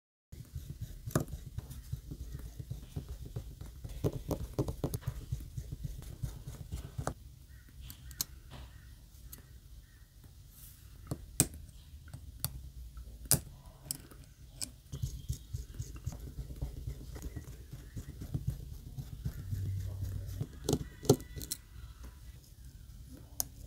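Small hand tools, a plastic pry tool and metal tweezers, clicking and tapping irregularly against a smartphone's internal brackets and frame, with handling rumble underneath.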